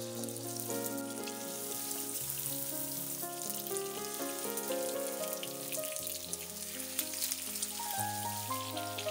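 Raw chicken leg quarters sizzling and crackling in hot vegetable oil in a frying pan as more pieces are laid in, with background music.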